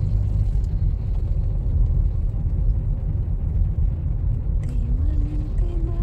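Road and engine noise inside a moving car's cabin: a steady low rumble. Near the end a faint tone steps up in pitch and holds.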